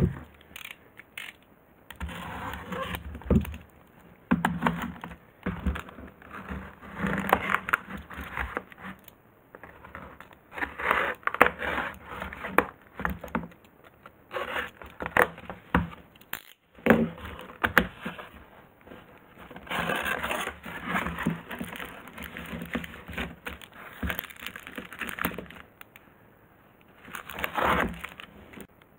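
A cardboard shipping box being opened by hand: packing tape scraped and torn, cardboard flaps pulled and rubbed, in irregular bursts of scraping and crackling. A sharp knock at the very start, and plastic packaging crinkling near the end.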